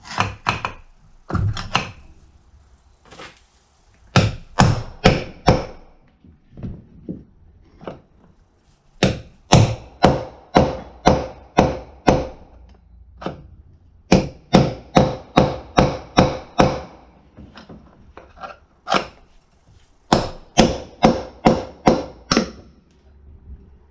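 Hammer blows on a punch driving a worn-out bearing from a Scag mower's front caster, ringing metal-on-metal strikes in runs of several blows about three a second, with short pauses between runs.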